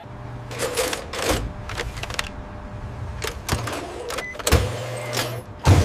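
ATM cash-handling mechanism running: a steady low motor hum with a string of mechanical clicks and clunks, the heaviest about four and a half seconds in and near the end.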